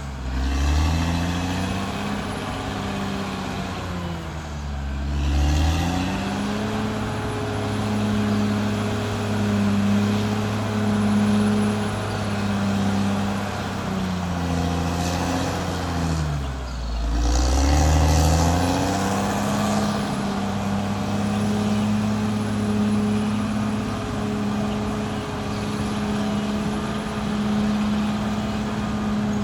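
Caterpillar D6R XL bulldozer's diesel engine running at high, steady revs. Twice, about four and about sixteen seconds in, the engine note sags lower and then climbs back up.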